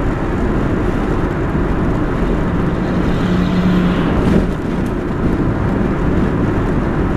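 Steady road and engine noise inside a moving car. About four seconds in, a large oncoming truck passes close by, briefly louder with a hum, then drops away.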